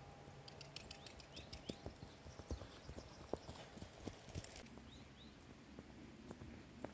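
A ridden horse's hoofbeats on soft dirt and turf, coming as irregular dull thuds. They are loudest in the middle as the horse passes close by, then fainter as it moves away.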